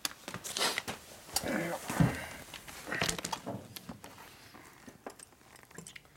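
Plastic bags of wheel weights rustling and scattered light clicks as hands work on a spoked motorcycle wheel being balanced, with a short murmured voice about a second and a half in.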